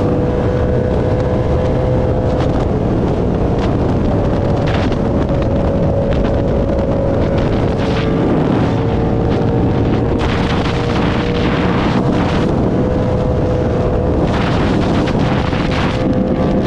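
Motorcycle engine running steadily at cruising speed, its note shifting slightly up and down a few times, with heavy wind noise on the microphone from riding.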